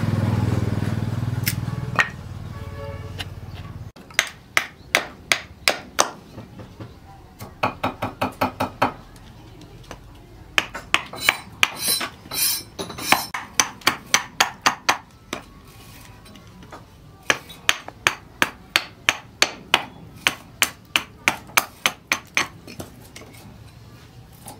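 Small hatchet chopping and shaving a wooden block held on a log: sharp woody knocks in quick runs of about three to five strikes a second, with short pauses between runs. For the first four seconds a steady low rumble sounds under the strikes and stops abruptly.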